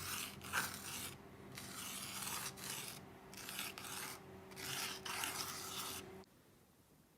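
Marker pen writing on a whiteboard: a series of short rubbing, rasping strokes that stop about six seconds in.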